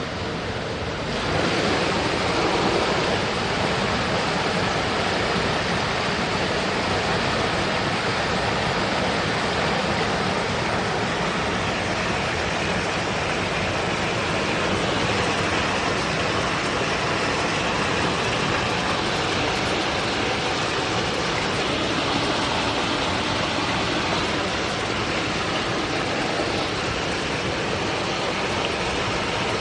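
Forest mountain stream rushing steadily, a continuous hiss of flowing water.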